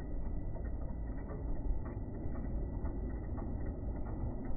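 Slowed-down, low-pitched rumble of a Nankai Railway commuter train running into the station, with a few faint clicks.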